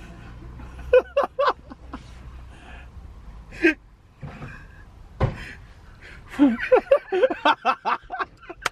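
People inside a car laughing and snickering in short bursts, a little about a second in and then in a long run of quick chuckles from about six and a half seconds in. A single thump comes about five seconds in.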